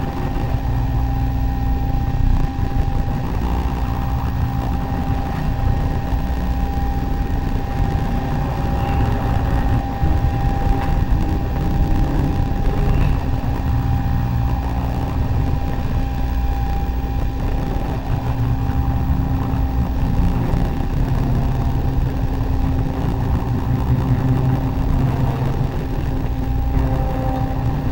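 Improvised electronic noise music: a dense low rumble with a steady mid-pitched tone and a lower held tone over it. The higher tone fades out around two-thirds of the way through.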